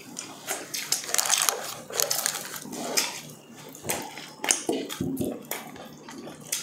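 Chewing and mouth smacking while eating stewed meat and rice by hand: an irregular run of short clicks and smacks.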